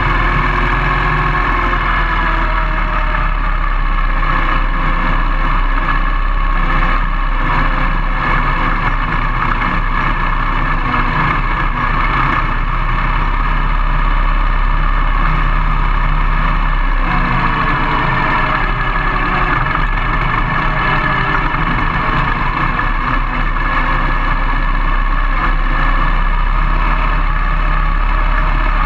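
Harley-Davidson Sportster V-twin engine of a Carducci SC3 Adventure dual-sport motorcycle running steadily while ridden off road, its pitch easing down and climbing again with the throttle.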